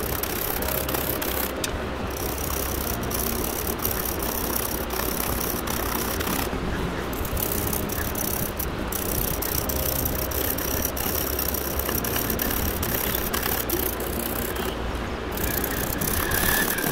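Anchoring wire being twisted tight by hand at the base of a potted bonsai, with small scraping and rattling clicks of wire and gravel over a steady background rush.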